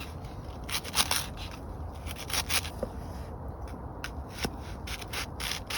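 Irregular scrapes, rustles and light clicks of cooking preparation: ingredients and utensils being handled and put into a pot.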